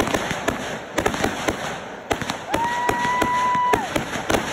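Backyard consumer fireworks crackling and popping in fast, irregular cracks. Past the middle, a whistle holds one steady pitch for about a second and a half, typical of a whistling firework, sliding up as it starts and down as it ends.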